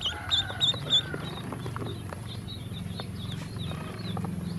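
Ducklings peeping: a quick string of short high peeps in the first second, then fainter scattered peeps, with sharp taps as their bills peck at feed on a plastic tub, over a low steady hum.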